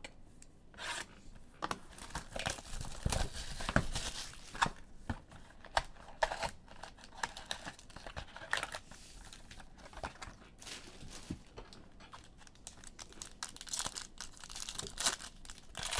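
Plastic wrapping of trading-card boxes and packs being torn open and crinkled, an irregular run of crackles and rips that gets busier near the end.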